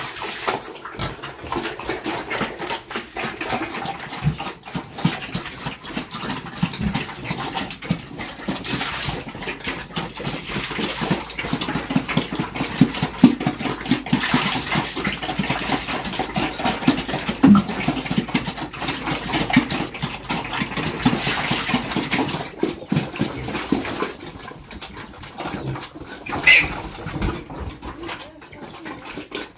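Pigs feeding on wet cooked bran mash at a trough, grunting, with the slurping and slopping of the mash. A brief high-pitched cry comes near the end.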